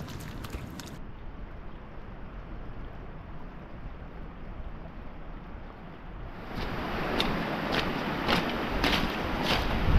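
Boots splashing in a shallow puddle for the first second, then a steady rush of wind for about five seconds. About two-thirds of the way in, hiking boots start crunching on a stony gravel path, just under two steps a second, growing louder.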